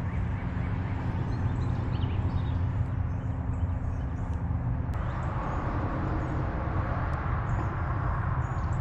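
Steady low outdoor rumble with a faint hum that stops about five seconds in, and a few faint bird chirps.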